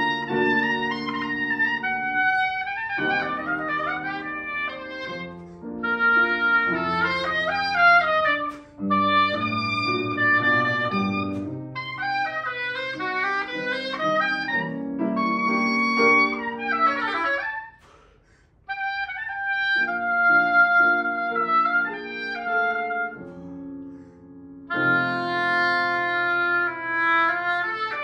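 Soprano saxophone playing a melodic concerto line with grand piano accompaniment, including a fast run of notes about two-thirds of the way through and a brief pause just after before the playing picks up again.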